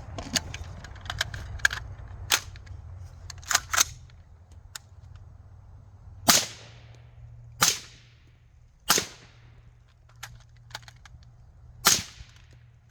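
Four suppressed rifle shots fired through a Q Trash Panda titanium 30-cal suppressor, each a sharp crack with a short echoing tail; three come about a second and a half apart, the fourth after a longer pause near the end. A few small clicks of gun handling come before the first shot.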